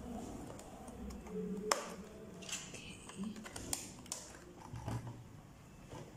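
Handling of a plastic desk phone: a scattering of light plastic clicks and knocks, the sharpest about two seconds in, as its battery is pressed into the back compartment and the phone is turned over.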